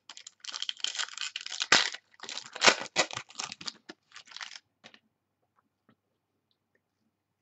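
A foil trading-card pack wrapper being torn open and crinkled by hand, with the cards rustling as they are pulled out. The rustling runs dense for about four and a half seconds, then stops.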